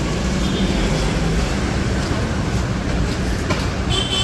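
Steady rumble of busy city street traffic and bustle, with a short high-pitched tone near the end.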